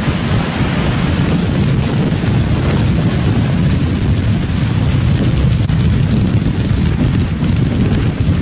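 Category 4 hurricane wind and driving rain blasting across the microphone: a loud, unbroken low rumble that swells and eases with the gusts.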